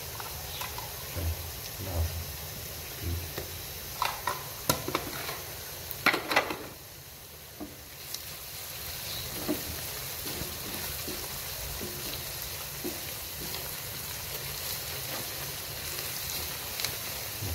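Sliced onions frying in hot oil in a non-stick wok with a steady sizzle. A wooden spatula stirs them, knocking and scraping against the pan several times about four to six seconds in.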